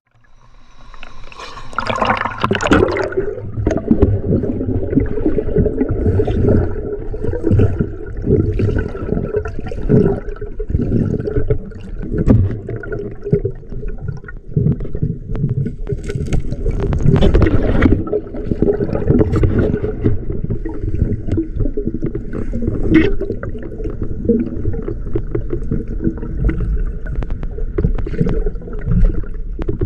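River water gurgling and sloshing close to the microphone during spearfishing, muffled, with many small knocks and scrapes.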